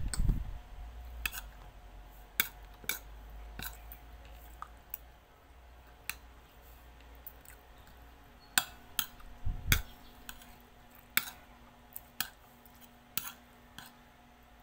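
A metal fork and spoon clinking against a plate during eating: about a dozen sharp, irregular clicks, with a couple of soft low thumps.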